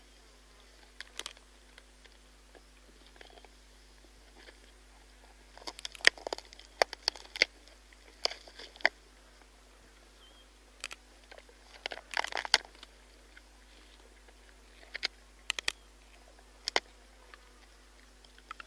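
Spotted hyena crunching buffalo bones close up: irregular sharp cracks and crunches in clusters, the busiest about six and twelve seconds in, with quiet gaps between.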